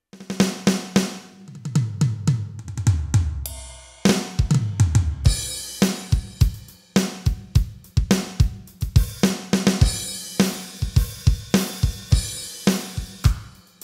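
Roland SPD-SX sampling pad playing drum-kit samples: kick, snare, hi-hat and cymbal hits. The first few seconds hold runs of low drum hits that fall in pitch, then a steady repeating beat sets in at about six seconds.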